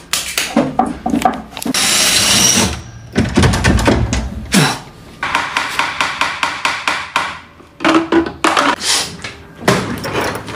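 A quick run of evenly spaced hammer blows on a wooden chair. About two seconds in, a loud burst of hiss lasts roughly a second.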